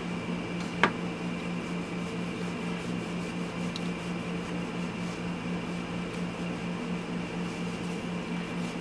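Steady background machine hum, like a fan or air-handling unit, running at an even level. A single sharp click comes about a second in.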